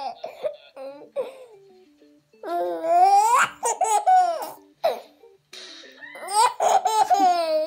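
A high-pitched voice laughing and squealing, with two long calls that rise and then fall, about two and a half and six seconds in.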